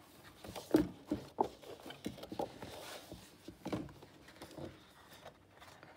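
Large sheets of scrapbook paper being handled and turned over on a table: soft rustling with a scatter of light knocks and taps as the sheets and pad are set down, the loudest about a second in and near the four-second mark.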